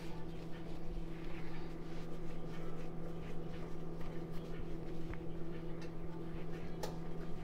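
Steady low electrical hum, with faint soft rubbing and a couple of light ticks as a log of yeast dough is rolled by hand on a floured stone countertop.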